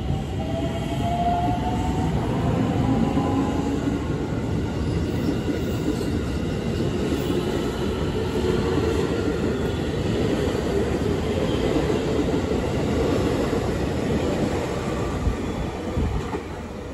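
JR West Special Rapid electric train moving out along the platform, with a rising whine in the first few seconds as it gathers speed. Then a steady rumble of wheels on rail as the cars go by, which drops away near the end as the last car clears.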